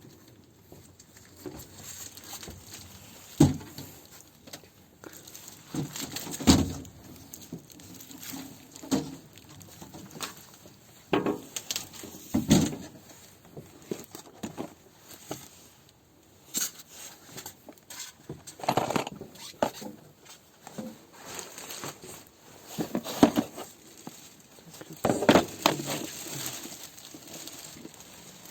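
Irregular handling noises: scattered knocks, clinks and rustling as things are moved about, with a few sharper, louder knocks spread through.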